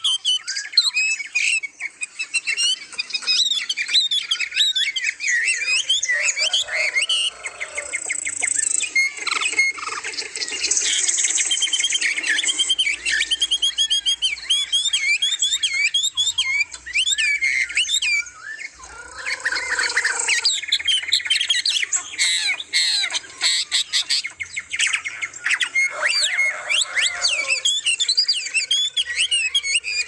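Many aviary songbirds calling and singing at once: a dense, unbroken chorus of overlapping chirps, trills, whistles and squawks.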